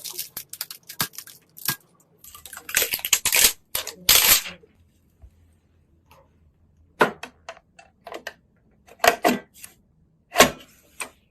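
Sharp plastic-and-metal clicks, taps and short rustles of computer parts being handled and fitted during a PC build, coming in irregular clusters with pauses between them.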